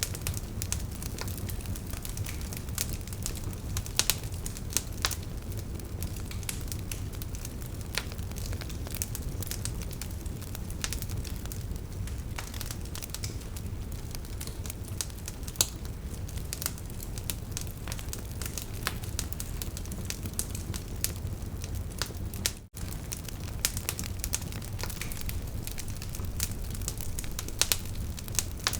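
Wood logs burning in a fireplace, crackling with frequent sharp pops over a steady low rumble. There is a momentary gap about three-quarters of the way through.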